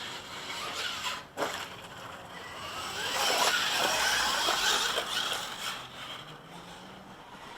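Electric-converted 1/8-scale RC buggy driving over loose ground: electric motor whine with tyres scrabbling on dirt, loudest in the middle as it speeds past, then fading.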